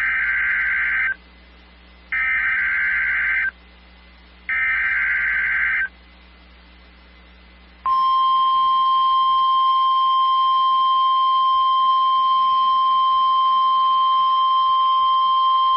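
NOAA Weather Radio weekly alert test. Three short bursts of SAME digital header data, each about a second long and a second apart, are followed about eight seconds in by the steady 1050 Hz warning alarm tone, which holds to the end. These signals trigger weather-alert receivers.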